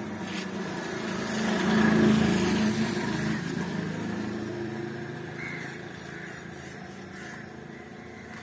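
A small-engined vehicle running past: it grows loudest about two seconds in, then slowly fades away.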